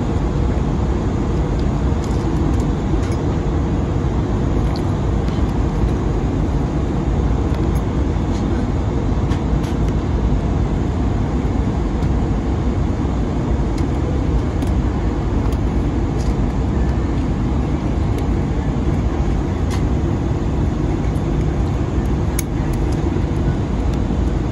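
Steady cabin noise of an Airbus A320 on approach, heard inside the cabin beside the wing: the rush of airflow and the CFM56-5B6 turbofan engines, deep and even, with a few faint ticks.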